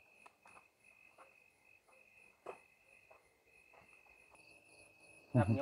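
Crickets chirping steadily, a pulsing high trill with a fainter, higher trill above it, and a single soft tap about halfway through.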